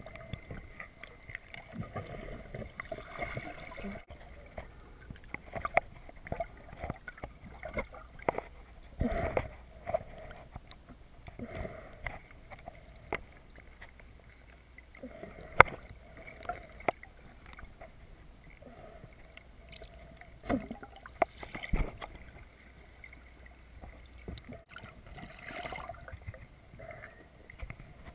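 Muffled water sloshing and gurgling picked up by a camera in an underwater housing just below the surface, with scattered sharp clicks and knocks.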